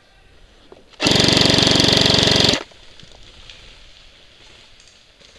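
G&G F2000 airsoft electric rifle firing one full-auto burst, about a second and a half long, starting about a second in: a fast, even rattle of rapid shots.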